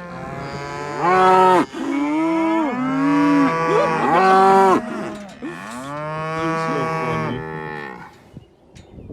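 Several cattle mooing loudly, long calls overlapping one another at different pitches, fading out near the end: the herd bawling for its hay feed.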